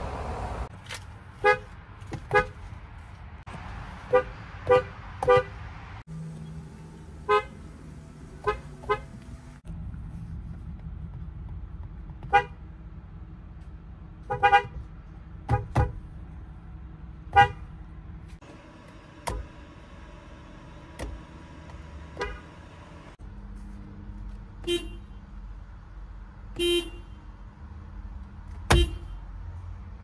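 Horns of several Toyota cars and trucks, one after another, each tapped briefly: a series of short single and double toots.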